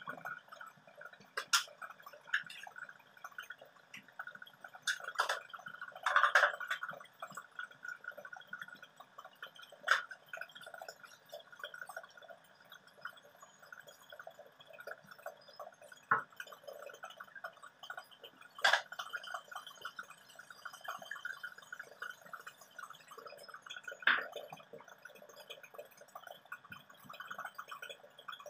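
Shrimp sizzling and crackling in a stainless steel wok as they are stirred with a plastic spatula, with a sharp knock every few seconds as the spatula strikes the wok.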